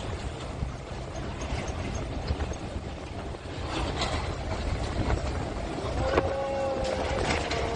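Storm-force wind buffeting the microphone: a steady low rumble with scattered rattles and clicks. About six seconds in, a drawn-out pitched sound sets in, sagging slightly in pitch.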